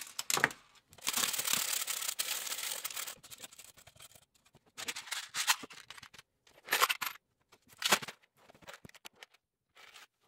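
Small metal screws rattling in a 3D-printed plastic sieve for about two seconds as they are sifted by size, then a few short clatters of screws and plastic trays being handled.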